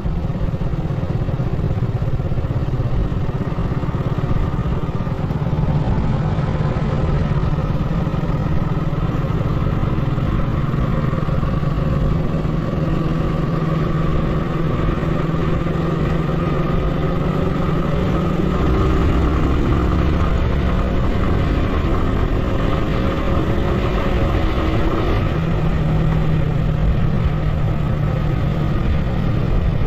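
A motor vehicle's engine running on the move, its pitch shifting as the speed changes, over steady road and wind noise.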